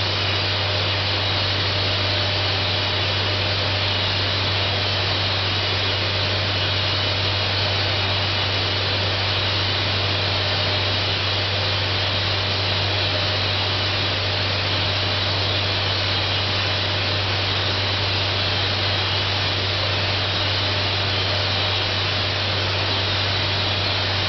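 Thermal spray gun running continuously, spraying a coating into the bore of a turning vacuum pump housing: a steady hiss with a constant low hum underneath.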